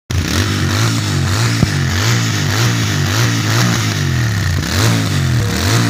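Royal Enfield Interceptor 650's 648 cc parallel-twin engine running through its twin exhausts, revved in quick repeated throttle blips so the pitch rises and falls over and over. There is a single sharp click about one and a half seconds in.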